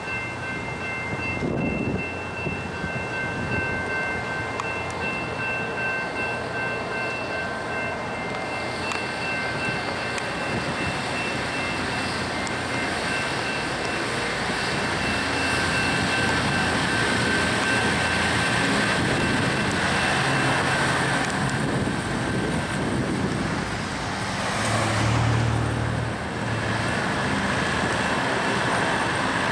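Union Pacific hi-rail track inspection truck rolling slowly along the rails, its engine running and its rail wheels rumbling on the track. Steady high ringing tones sound through the first two-thirds, and the engine grows louder about 25 seconds in as the truck passes close.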